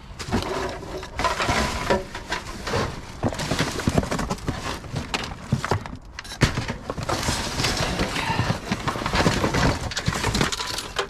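Scrap being rummaged and tossed about inside a dumpster: irregular clattering and knocking of plastic, wire and metal pieces, with a short lull about halfway through.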